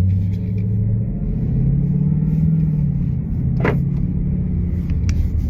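BMW F80/F82 M3/M4 twin-turbo straight-six running at low revs through its exhaust with the exhaust valves held wide open by their unplugged connectors, a deep steady rumble whose pitch rises slightly and settles back around the middle.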